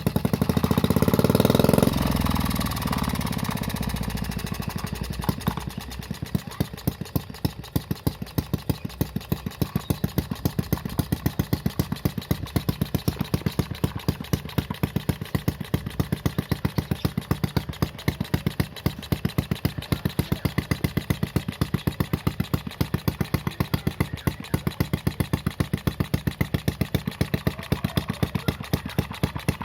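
Homemade mini four-stroke engine with a new exhaust, revved briefly at the start and then settling into a slow, even idle with separate, evenly spaced exhaust pulses.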